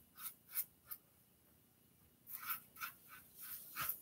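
Safety razor scraping stubble through lather on the neck in short, quick strokes, about three a second: three strokes, a pause of over a second, then a run of about five more. A cross-grain pass.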